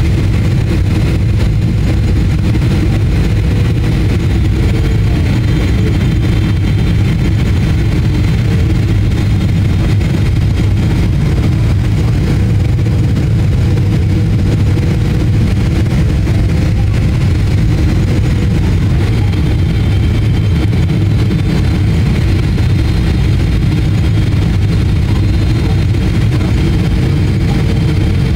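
Steady, loud cabin noise inside a Boeing 777-300ER on final approach: the drone of its GE90 engines and the rush of air, heaviest in the low range, with a faint steady whine above it.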